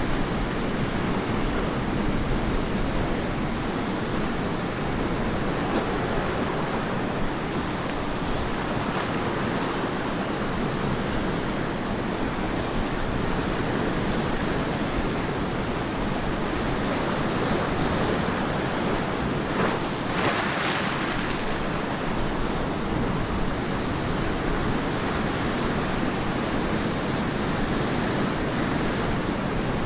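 Ocean waves breaking and washing on a beach: a steady surf wash, with a brighter hissing surge about two-thirds of the way through.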